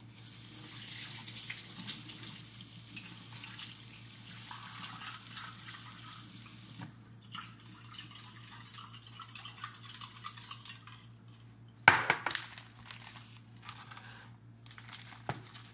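Kitchen clatter of dishes and utensils being handled, with water running from a tap in the first few seconds. Scattered clicks and knocks follow, the loudest a sharp knock about twelve seconds in.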